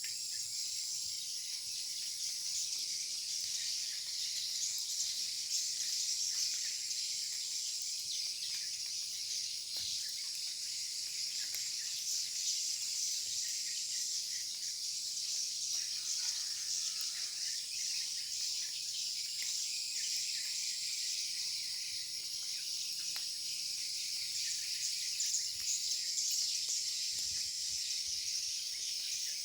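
Many edible-nest swiftlets calling inside a swiftlet house: a dense, continuous high twittering and ticking. These are the birds' own calls with the house's lure-call speakers switched off, which the keeper takes for the birds protesting.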